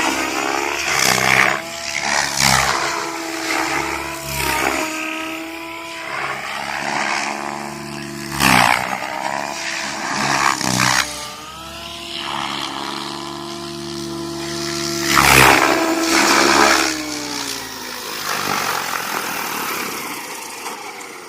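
Goblin 700 electric RC helicopter in flight, its brushless motor and rotor tone repeatedly rising and falling in pitch as the blades load and unload through aerobatic manoeuvres, with several loud whooshing bursts from the rotor blades. The sound grows fainter near the end.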